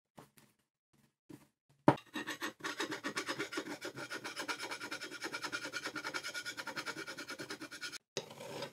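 Flat hand file scraping across a steel shaft from a lathe turret tailstock in rapid, even short strokes, after a few light handling clicks. The file is dressing down metal that has been battered.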